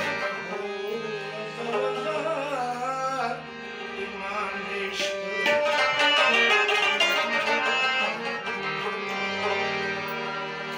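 Ghazal accompaniment on harmonium, tabla and plucked rabab, with a man singing at times. Gliding melodic lines come in the first few seconds, and sharper struck and plucked notes follow from about halfway.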